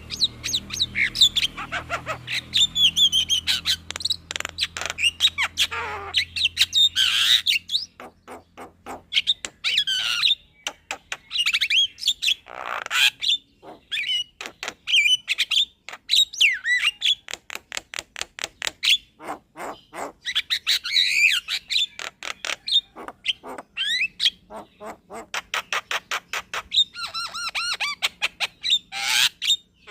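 Javan myna (jalak kebo) singing a long, continuous rolling song: rapid runs of harsh clicks and squawks mixed with gliding whistled notes.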